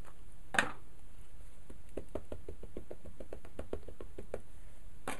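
A Memento ink pad dabbed over and over onto a clear photopolymer stamp: a run of quick light taps, about six a second for nearly three seconds. A single sharp knock comes just before the taps and another at the very end.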